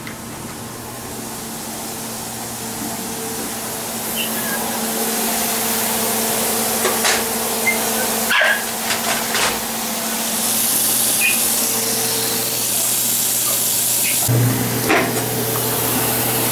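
Kitchen cooking noise: a steady hum with a hiss of frying grease, scattered clicks of pans and utensils, and a few short dog whimpers.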